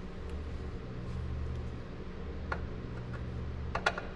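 Steady low hum with a few sharp clicks from a hand screwdriver and plastic sun-visor mount being worked at the truck's roof: one about two and a half seconds in, then a quick cluster of three near the end.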